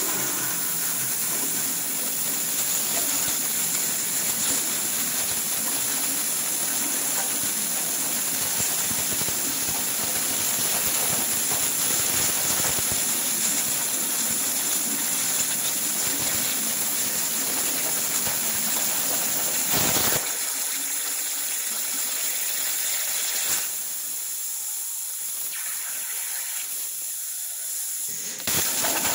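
CNC plasma cutter (Hypertherm torch) piercing and then cutting steel plate: a loud, steady hiss of the plasma arc and air. The sound thins about 20 seconds in and drops to a quieter hiss a few seconds later. Near the end it comes back at full strength.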